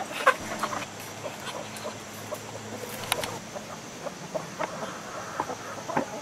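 Backyard chickens clucking softly, mixed with scattered short knocks and clicks.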